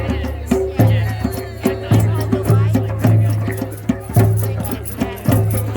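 Percussion music with a steady beat: a deep drum struck about once a second, each stroke ringing on, with rattles and lighter clicks between the strokes.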